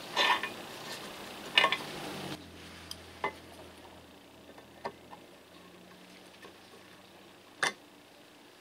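Sharp metallic clicks and scrapes of steel pliers working against the metal housing of an old Makita 1800 electric planer. A quick cluster in the first two seconds is the loudest, then single clicks every second or two.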